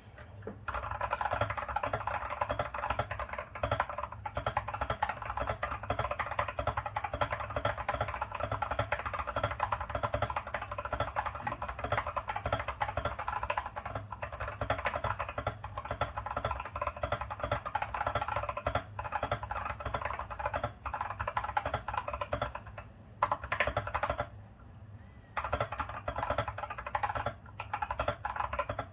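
Continuous fast typing on a Vortex RE:68 mechanical keyboard fitted with Gazzew Boba U4T tactile switches, the keystrokes running close together and stopping for about a second near the end.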